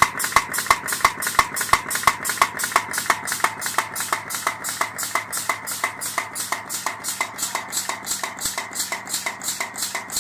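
Headless pin making machine running, its die stroking in a steady rhythm of about four sharp metallic clicks a second over a steady hum.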